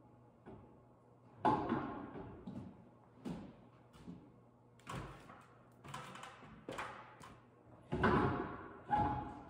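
Metallic clunks and thuds, roughly one a second, some ringing briefly, loudest about a second and a half in and again near the end: footsteps and knocks on the steel deck frame of a truck fitted with a loader crane.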